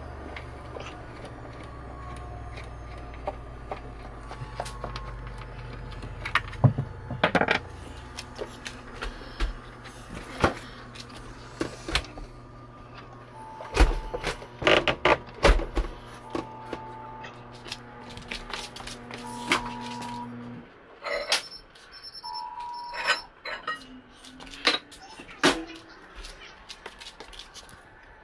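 Clicks and knocks of hands and tools working on the pipes under a kitchen sink, over a steady low hum that cuts off about two-thirds of the way through.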